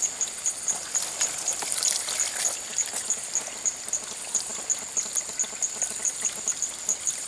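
A night-calling insect pulsing steadily, a high, even beat of about four pulses a second, over a constant hiss. A few faint clicks around two seconds in.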